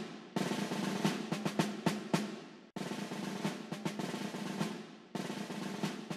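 Background music of snare drum rolls with sharp drum hits over a steady low tone. The phrase breaks off and starts over about every two and a half seconds.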